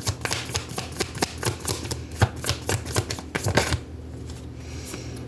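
A deck of tarot cards being shuffled by hand: a rapid, irregular run of crisp clicks and snaps that stops about four seconds in, followed by a soft rustle.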